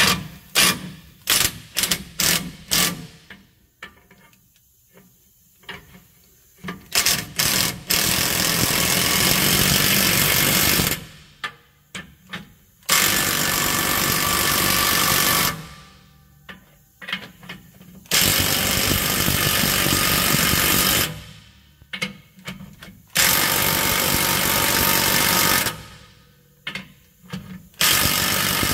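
Cordless electric impact wrench hammering nuts down onto a bracket's bolts, first in short pulses, then in several runs of two to three seconds each with short pulses between.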